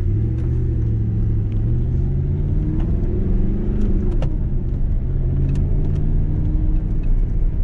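Audi R8's V10 engine heard from inside the cabin, pulling away and accelerating hard in the low gears. Its pitch climbs for about four seconds, dips once as it shifts up a gear, then runs on steadier.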